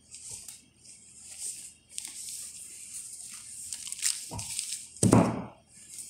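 Cloth and plastic rustling as a kitchen towel is draped and tucked over a plastic-covered bowl, with a small knock just after four seconds and a louder dull thump about five seconds in.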